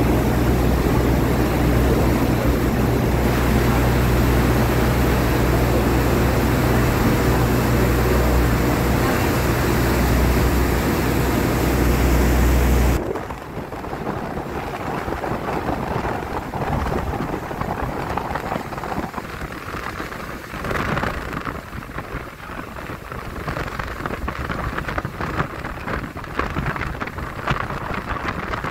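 Tour boat under way: a steady low engine drone over the rush of the churning wake. About 13 s in the sound drops suddenly to gusty wind and splashing water.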